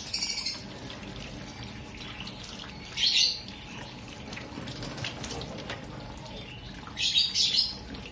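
Water from a hose runs steadily and splashes off a wet kitten onto a stainless-steel sink. Three short, high chirps stand out over it: one at the start, one about three seconds in, and one about seven seconds in.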